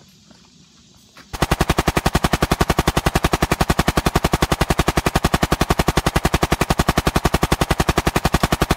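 Machine-gun fire: a long unbroken burst of evenly spaced shots at about ten a second, starting a little over a second in, sharp and loud. Its perfectly even rate is typical of a dubbed sound effect.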